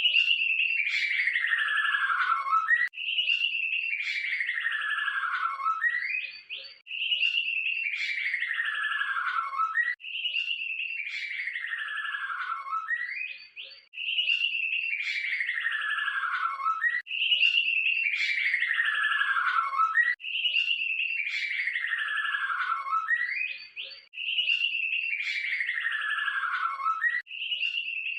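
White-rumped shama (murai batu) song phrase, a dense trill falling steadily in pitch over about two seconds and ending in a short rising note. The same phrase is repeated about eight times at an even pace, about every three and a half seconds.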